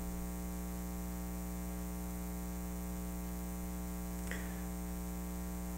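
Steady electrical mains hum with a faint hiss, even throughout.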